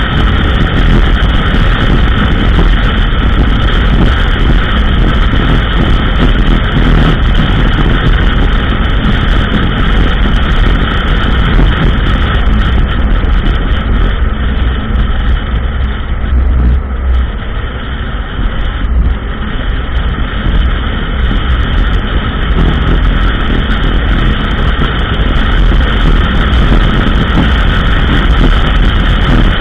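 ATV engine running steadily while riding along a trail, mixed with wind noise on the microphone. It eases off a little for a couple of seconds past the middle.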